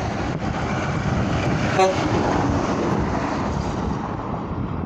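Highway traffic passing at speed, a steady rush of trucks' tyres and engines, with one very short pitched toot about two seconds in.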